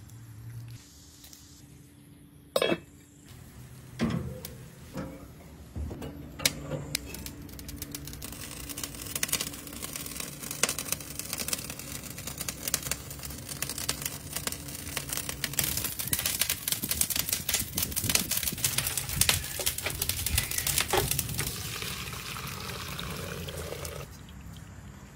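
A few sharp knocks, then the dense crackle of braising liquid bubbling and sizzling around a beef roast in an enamelled cast-iron Dutch oven. The crackle builds over several seconds and drops away near the end.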